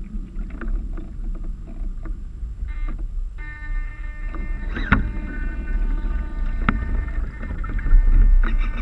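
Water slapping and splashing along the hulls of a Mini40 sailing trimaran under way, over heavy wind rumble on the microphone that grows stronger near the end. Sharp knocks stand out about five and about seven seconds in, and a steady thin hum with overtones runs underneath, cutting out briefly around three seconds in.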